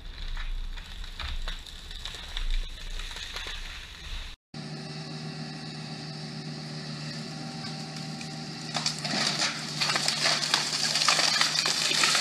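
Excavator engine running steadily. From about nine seconds in, loud cracking and snapping of wood and branches as a pine tree is pushed over. Before a cut about four seconds in, there is only a low rumble with a few knocks.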